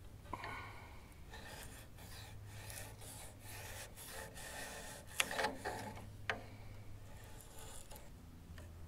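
Faint rubbing and scraping of hands fitting a small part at the sawmill head's bracket, with a sharp click about five seconds in and another about a second later.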